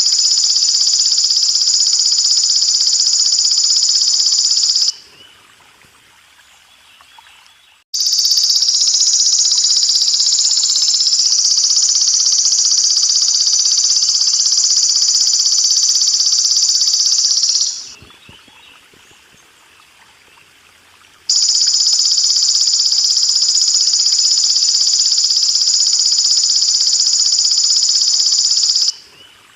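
Belalang emas ('golden grasshopper') insect calling as songbird training audio: a loud, steady, high-pitched buzzing trill in long bouts. It breaks off about five seconds in, resumes around eight seconds, stops again near eighteen seconds, returns around twenty-one seconds and stops near the end. A faint trickle of water runs underneath and is heard in the pauses.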